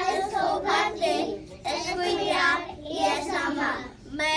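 A group of young children singing together, in sung phrases with short breaks between them.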